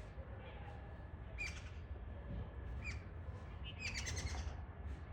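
Short, sharp bird chirps, one at a time about every second and a half and a quick cluster near the end, over a steady low rumble.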